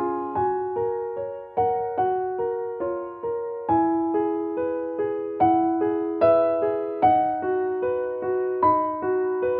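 Background music: a gentle piano melody of struck notes, each fading away, about two to three notes a second.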